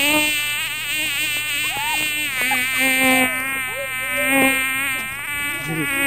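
A flying insect buzzing loudly and steadily, its pitch wavering slightly; the buzz starts and stops abruptly.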